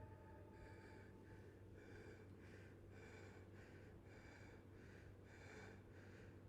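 Near silence, with faint short pitched sounds repeating about twice a second.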